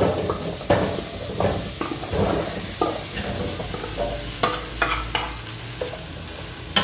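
Seasoned vegetable cubes sliding and tumbling from a stainless steel bowl into an air fryer basket, a metal spoon scraping and knocking against the bowl: a run of irregular soft thuds and clinks.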